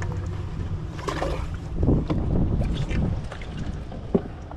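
Bass boat sounds: a low steady hum that fades about two seconds in, then irregular knocks and rustling with wind on the microphone, and one sharp click near the end.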